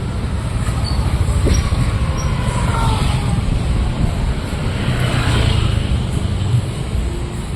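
Road traffic: vehicles passing by, with a steady low rumble and two louder passes, one about a second and a half in and one about five seconds in.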